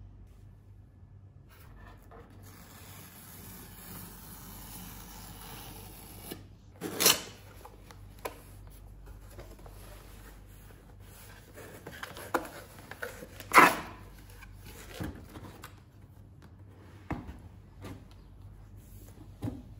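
Cardboard shipping box being handled and opened: rubbing and scraping of cardboard, with several short, sharp cardboard noises from the flaps, the loudest about seven and thirteen and a half seconds in.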